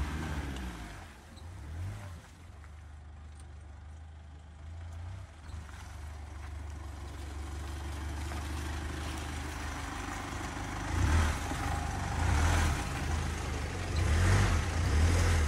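Mitsubishi Pajero's engine running low as the SUV reverses a boat trailer through deep mud, the revs rising in surges over the last few seconds.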